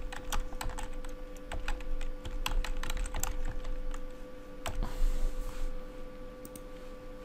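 Typing on a computer keyboard: a run of irregular key clicks over a steady hum.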